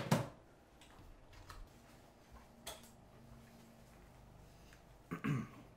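A few light clicks and taps over quiet room tone, with one sharper click at the start. A brief voice sound comes just after five seconds in.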